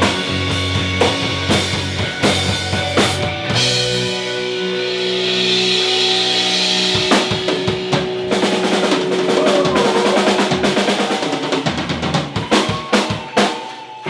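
Live rock band playing the instrumental ending of a song, led by a full drum kit with bass and a long held note. Around two thirds of the way in comes a fast drum fill, then a few heavy final hits.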